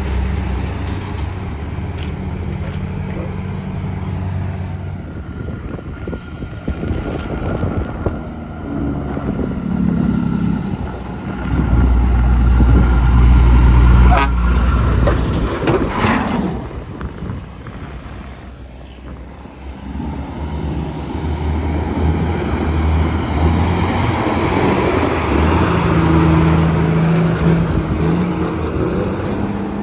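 Heavy diesel trucks, dump trucks among them, driving past one after another up a steep grade, their engines pulling hard under load. The deepest and loudest rumble comes about halfway, as a tandem-axle dump truck passes, with a couple of sharp noises. The engine sound dips, then builds again near the end as another dump truck goes by close.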